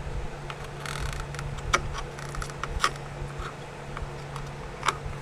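Metal tweezers clicking and tapping against a surface-mount chip and circuit board as the chip is worked loose from molten desoldering alloy: three sharp clicks among fainter ticks, over a steady low hum.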